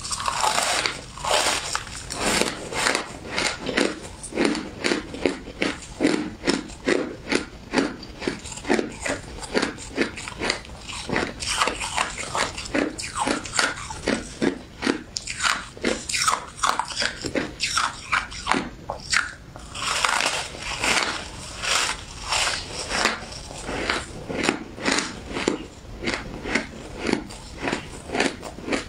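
A person biting and chewing shaved ice: a steady run of crunches, roughly two a second, close to the microphone.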